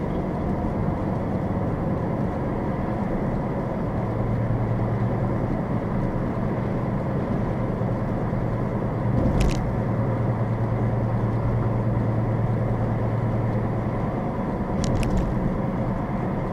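A steady drone of engine and tyre noise heard inside a car's cabin while it drives at about 30 to 40 mph. There is a short thump with a click about nine and a half seconds in, and a couple of faint clicks near the end.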